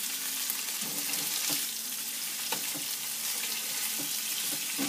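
Chopped ham sizzling in olive oil in a nonstick frying pan: a steady frying hiss, with a few faint clicks.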